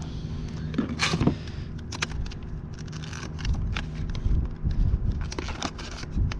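Plastic clicking and rattling as a clear plastic tackle box and a soft-plastic lure package are handled and rummaged through, in a quick irregular run of sharp clicks.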